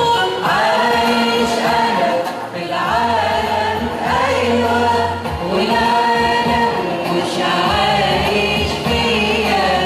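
Church choir singing an Arabic Christian hymn (tarnima) over steady low accompanying tones.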